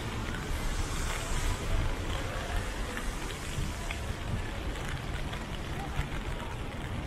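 Steady rain falling on a city street, an even hiss over a low rumble, with scattered small ticks of drops.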